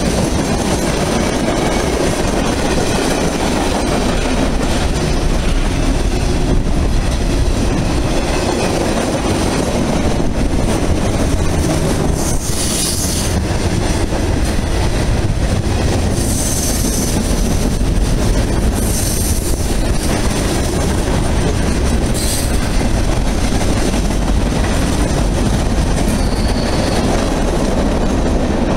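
Freight train's tank cars and boxcars rolling past close by, a steady loud rumble with the wheels clattering over the rails. A few brief high squeals from the wheels come through in the middle stretch.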